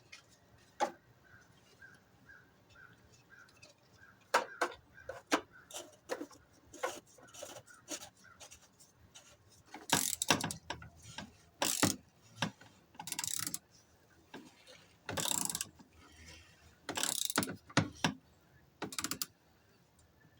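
Hand ratchet clicking in short strokes, tightening the oil filter housing cap on a Chevy Cruze 1.8 after the new filter goes in. Scattered sharp tool clicks run between the strokes, and the strokes come mostly in the second half.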